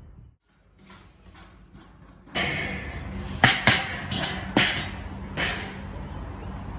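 Steel lids on a giant kazan cauldron of pilaf clanking against one another as a cook moves them, over a steady hiss of steam. About half a dozen sharp metallic knocks come in the second half.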